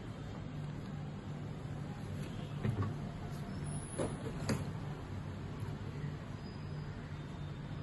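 A few light clicks and knocks, about three in all, as laparoscopic instruments are set into the notched holder of a sterilization tray, over a steady low hum.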